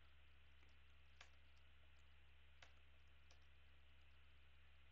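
Faint computer keyboard key clicks, a few isolated keystrokes, over a steady low hum; otherwise near silence.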